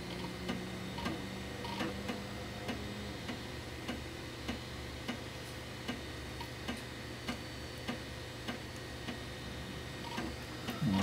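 Floppy drive reading an install disk, its head stepping from track to track with a regular click about one and a half times a second, over a low steady hum.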